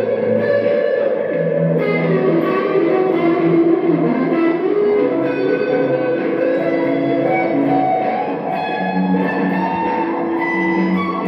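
Electric guitar music played through effects pedals: layered, sustained notes that shift in pitch every few seconds, with new plucked notes entering over a held bed.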